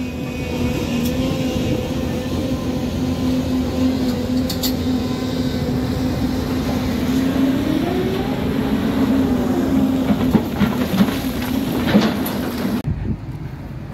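Volvo EC350DL crawler excavator running and digging rock: a steady engine and hydraulic hum whose pitch climbs and falls back as the machine takes load, with a few knocks and clatters of rock against the bucket. A second before the end the sound drops abruptly to a quieter engine note.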